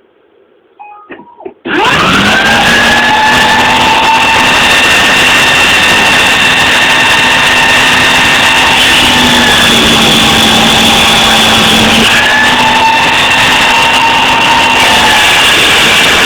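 A small high-speed motor, likely the mini CNC mill's spindle, switches on after a few clicks about two seconds in. Its whine rises quickly to speed and then runs steadily and loud, with the pitch shifting slightly a couple of times.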